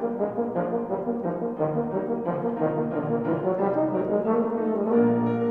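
Euphonium playing a quick passage of short notes, then a loud held note near the end.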